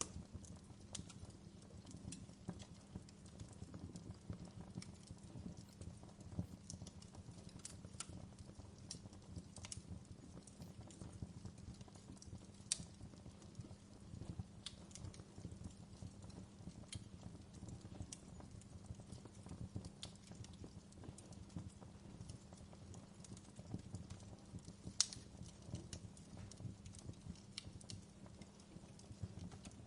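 Wood fire crackling: soft, irregular pops and snaps over a low steady rumble, with two louder pops about 13 and 25 seconds in.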